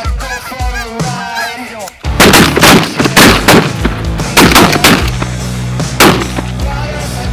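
Geese honking as a flock comes into the decoys, then a rapid volley of about a dozen shotgun blasts from several hunters over some three seconds, with one more shot about six seconds in. Background rock music runs underneath.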